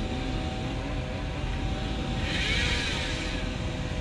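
A group of motorcycle engines idling at a stop, a steady running hum. A little over two seconds in, a brief higher-pitched wavering sound lasts about a second.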